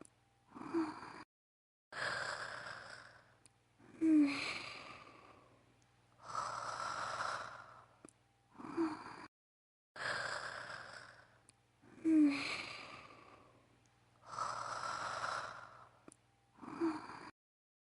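A woman's voice-acted snoring, looped: breathy snore-breaths alternate with short squeaky snorts and sighs about every four seconds. There are brief dead-silent breaks where the loop is joined.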